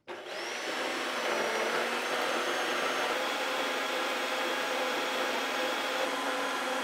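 Portable metal-cutting bandsaw switched on, its motor coming up to speed within a fraction of a second, then running steadily with a whine as the blade cuts through steel stock.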